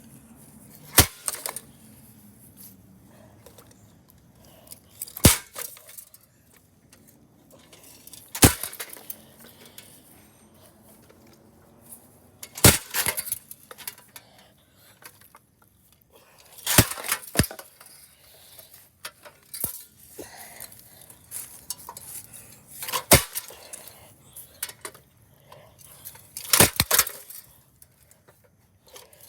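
Metal parts of a ceiling fan being struck and smashed apart: sharp metallic clanks with a short ring, one every few seconds, some coming in quick pairs.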